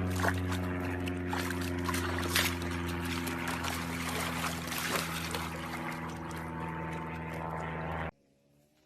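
A steady motor hum at a constant pitch with a hiss over it and a few scattered clicks, cutting off suddenly about eight seconds in.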